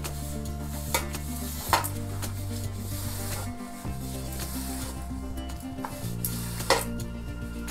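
A hand rubbing and pressing crumbly flour dough against a stainless steel bowl while kneading it, with three sharp knocks about a second in, near two seconds and near the end. Background music with low held notes plays underneath.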